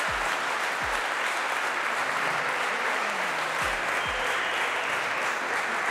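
A room of people applauding steadily, with a few short deep thuds underneath.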